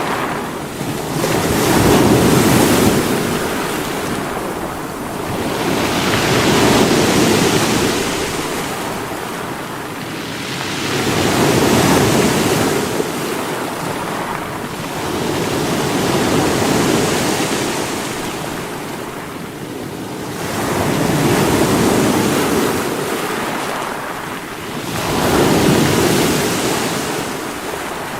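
Sea waves breaking against rocks, each surge swelling and washing back about every four to five seconds over a constant rushing hiss.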